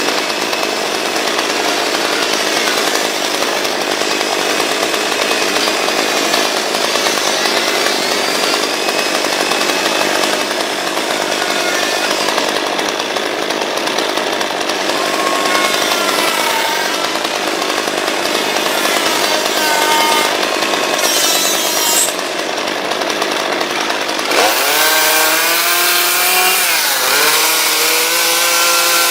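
Two-stroke chainsaw running and cutting into wood during carving, its engine note wavering as the throttle is worked. About 24 seconds in, the sound changes to a clearer engine note that sweeps up and down in pitch.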